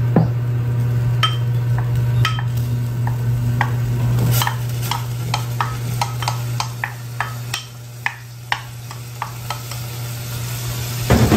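Wooden spatula stirring bomal sea snails in sesame oil in a stainless pot, with a light sizzle and a steady low hum. From about four seconds in, a quick string of sharp clicks as the spatula scrapes and taps the last snails out of a ceramic bowl into the pot.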